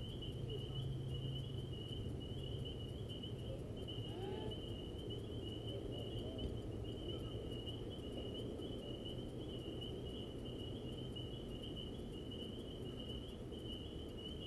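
Crickets trilling steadily at one high pitch, over a low steady hum.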